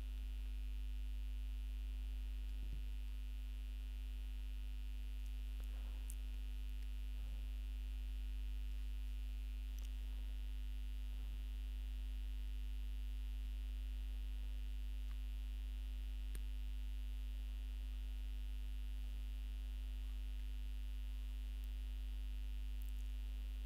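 Steady low electrical mains hum with a faint hiss, unchanging throughout: the noise floor of the recording's microphone chain.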